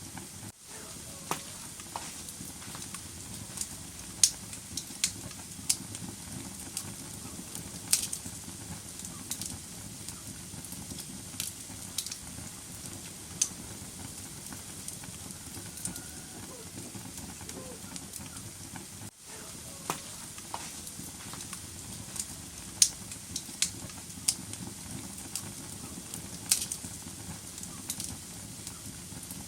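Wood fire burning in a fireplace: a steady soft hiss with irregular crackles and sharp pops, a few of them loud snaps. The sound cuts out for an instant twice, just after the start and about two-thirds of the way through.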